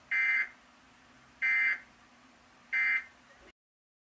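Emergency Alert System end-of-message data tones: three short bursts of screechy two-tone digital data near 2 kHz, about 1.3 s apart, signalling the end of the alert. The audio then cuts off abruptly.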